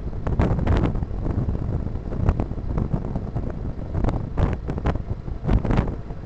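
Wind buffeting the microphone of a car driving along a road, gusting irregularly over a steady low rumble from the road and the car.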